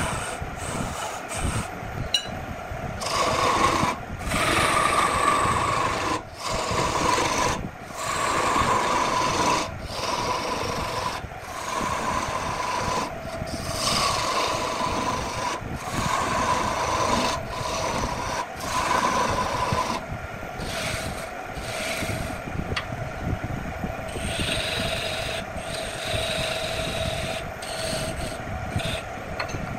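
A hand-held turning tool cutting into spinning wood on a wood lathe: a continuous rasping scrape, broken by many brief breaks in the cut.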